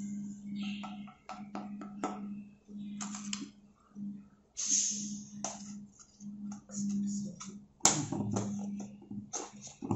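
Hot oil in a frying pan crackling and spitting in short irregular bursts, with a sharp click about eight seconds in. A low hum comes and goes underneath.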